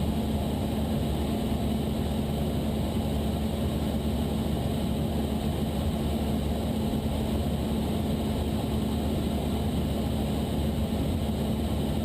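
Cessna 172's piston engine and propeller droning steadily in the cockpit, with an even hum and low rumble and no change in power.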